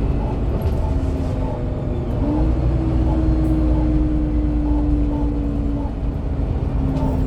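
Dennis Dominator double-decker bus running, its engine drone carrying a steady whining tone that steps up in pitch about two seconds in, holds, and drops back near six seconds.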